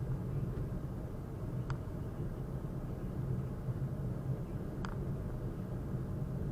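Steady low rumble of a car driving in heavy rain, heard from inside the cabin, with tyre and road noise on the wet road. Two brief faint clicks come about a second and a half in and again near five seconds.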